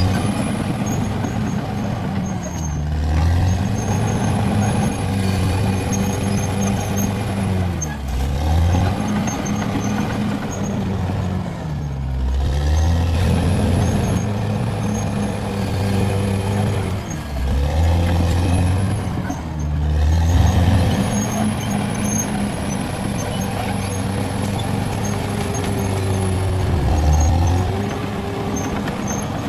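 Caterpillar D6R XL bulldozer's diesel engine running hard under load. Its pitch sags and recovers about six times as the engine lugs down and picks back up.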